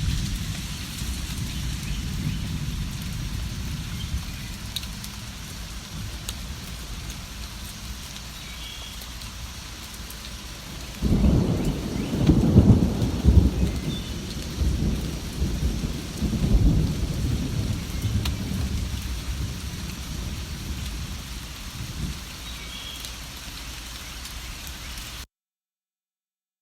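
Steady rain with low rolling thunder. A louder thunder rumble builds about eleven seconds in and fades over several seconds, with a few faint bird chirps over the rain. Near the end the sound cuts out abruptly.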